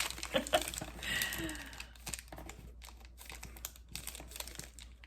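Packaging crinkling and rustling in irregular small clicks as snack items are handled.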